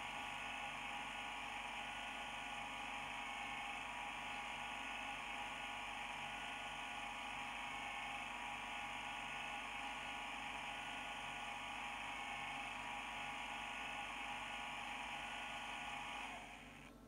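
Simulated Class 31 diesel engine idling, played by an ESU DCC sound decoder through the model locomotive's small speaker: a steady, tinny hum that drops away about a second before the end.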